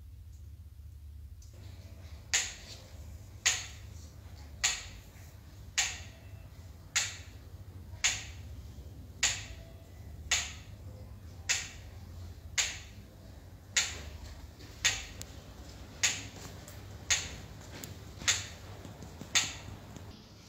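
Mechanical pyramid metronome ticking slowly and evenly, a click a little more than once a second, starting about two seconds in, over a low steady hum.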